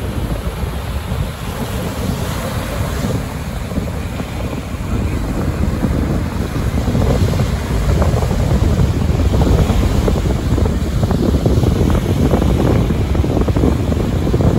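Waves breaking on a sandy shore, under heavy wind buffeting on the microphone. The wind noise is the dominant sound, a little louder from about halfway through.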